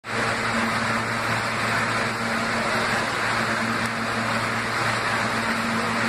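Steady hum and air rush of an NYC R160 subway car standing at the platform with its doors open, with a constant low drone under it.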